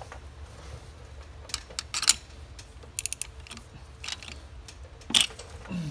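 Hand tools working on the ATV's 17 mm flywheel nut, with the spanner wrench holding the flywheel: scattered sharp metallic clicks and clanks, including a quick run of four clicks about halfway through.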